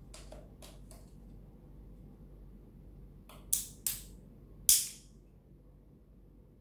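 A few faint ticks, then three sharp clicks, the last a little longer, from the plastic headlamp housing and lens being worked apart.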